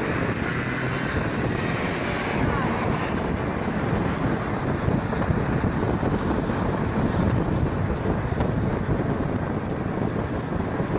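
Wind rushing over the microphone of a handlebar-mounted camera on a moving bicycle: a steady noise heaviest in the low end, with a few faint ticks.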